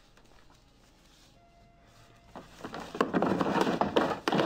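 Quiet at first, then about two and a half seconds in, loud, rapid rustling and crinkling with many sharp crackles as a new dress shirt is handled.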